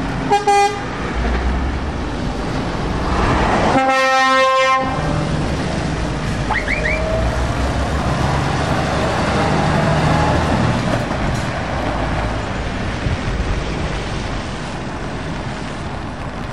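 Convoy trucks driving past on a wet road, engines running under a steady hiss of tyres on the wet surface. A short horn toot sounds just after the start, and a longer, louder horn blast about four seconds in. A Scania road sweeper passes close by in the middle.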